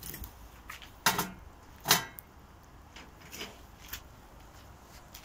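A wooden stick knocking and scraping burning logs and embers about in a steel brazier, with two sharp knocks about one and two seconds in and lighter taps after: the fire being broken up to put it out.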